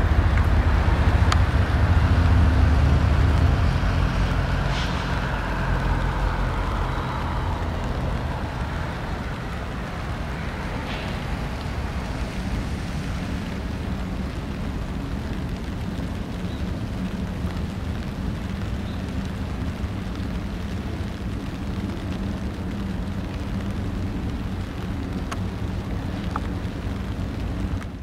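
Road traffic: a vehicle passing, its rumble and tyre hiss loudest for the first few seconds and fading away by about seven seconds in, then a steady low traffic rumble.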